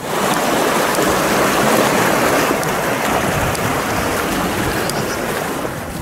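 Steady rushing of flowing water, like a stream running under a footbridge. It starts suddenly, stays even and loud, and eases off near the end, with faint footsteps under it.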